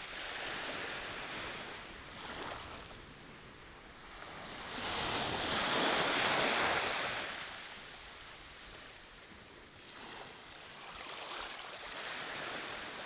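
Small waves washing up a sandy beach, swelling and falling back, with one larger wave breaking and running up the sand about five seconds in, the loudest moment, before fading away.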